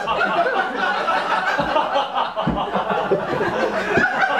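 Theatre audience laughing, many voices overlapping throughout, with a few short low thumps.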